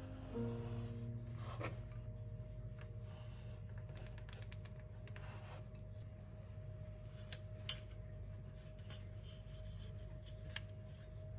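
Kitchen knife cutting through shortcrust pastry dough on a wooden board: soft rubbing and scraping, with a few light taps, the sharpest about two-thirds of the way through.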